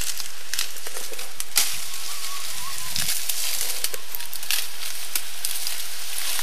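Dry sugarcane leaves and trash crackling and rustling in scattered sharp clicks as a man steps through them and pushes cane stalks aside, over a steady hiss.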